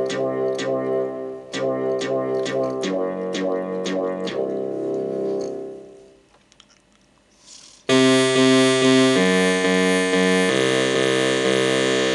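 Korg Kronos synthesizer playing preset sounds. A plucky, rapidly repeated note pattern fades away about six seconds in, and after a short pause a louder, bright sustained sound enters, moving through a few chord changes.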